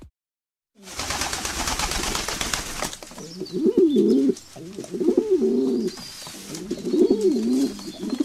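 A rush of noise for about two seconds, starting about a second in, then a pigeon cooing in three phrases.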